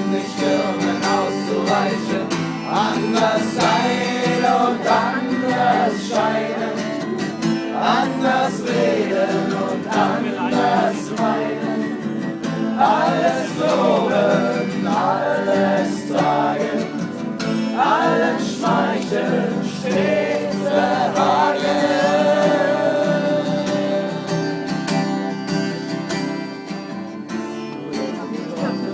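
Acoustic guitar strummed while voices sing a German song, with one long held note past the middle.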